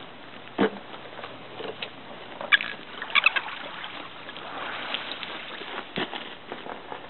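Bald eagles feeding on salmon scraps on a gravel beach: scattered short sharp clicks and knocks, with a quick cluster of high sharp sounds about three seconds in, over a steady wash of shoreline water noise.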